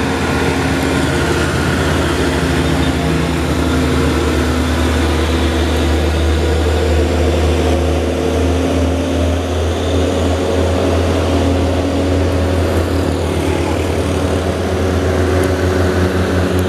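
Diesel truck engine running under load at steady revs, a loud, deep drone.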